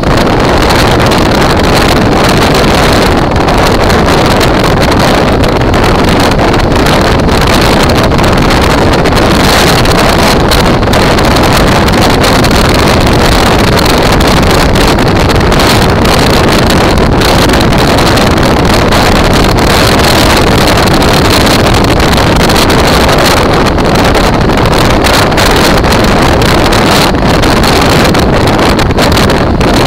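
Loud, steady wind noise on the microphone of a camera on a moving motorcycle, with the motorcycle's engine running under it.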